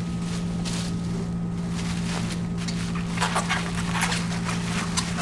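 Plastic bubble wrap rustling and crinkling in intermittent bursts as it is lifted and rolled by hand, over a steady low hum.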